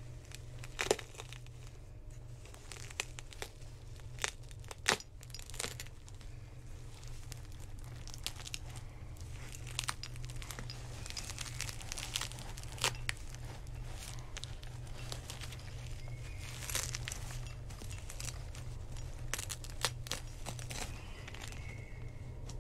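Irregular rustling, crinkling and sharp little clicks of hands handling a doll and pulling off its glued-on wig, over a steady low hum.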